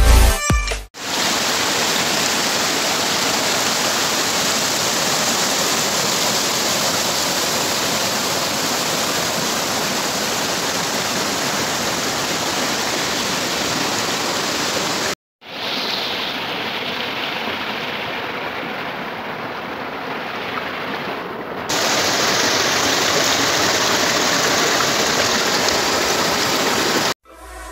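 River water rushing over rocks and through shallow rapids, a steady rush of water. It cuts off abruptly about halfway through and comes back duller and a little quieter, then louder again for the last few seconds before cutting off near the end.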